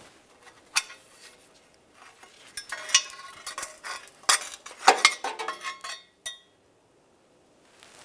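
Thin sheet-metal exhaust heat shield clinking and scraping as it is worked loose and pulled out: a run of irregular metallic clinks and scrapes that stops abruptly about six seconds in.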